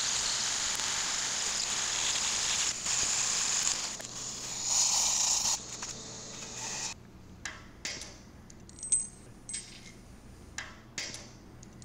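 Rotary hammer drill boring an anchor hole into the concrete floor, with a dust-extraction vacuum hose pulling the dust, running steadily for about seven seconds. Then the noise stops and a few sharp metallic clinks follow as the steel anchor bolt, washer and nut are set into the hole.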